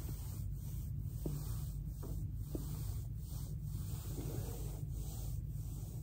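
Foam body roller rubbing and rolling against carpet and clothing under a person's back, with soft swishing about twice a second over a steady low hum. A few short soft clicks in the first half are the back popping on the roller.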